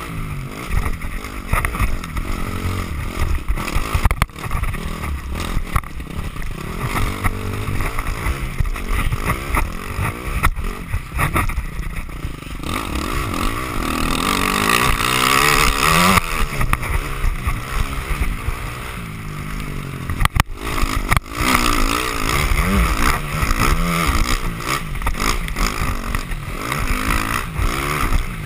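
Dirt bike engine running hard on a trail ride, its pitch rising and falling with the throttle and gear changes, with a clear rev-up around the middle.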